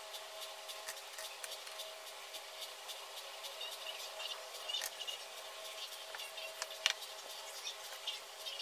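Pencil scratching on paper in short, irregular strokes, with one sharper click nearly seven seconds in.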